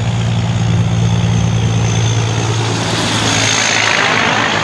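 Semi-trailer truck's diesel engine running with a steady low drone as it drives past, with a rush of tyre and wind noise that swells as the trailer goes by about three to four seconds in.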